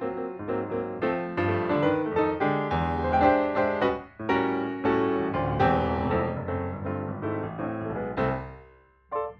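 Background piano music with a run of struck notes, fading out near the end.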